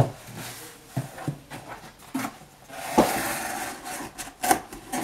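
Corrugated cardboard shipping box being opened by hand: its flaps knock and scrape, with a longer rubbing scrape of cardboard about three seconds in.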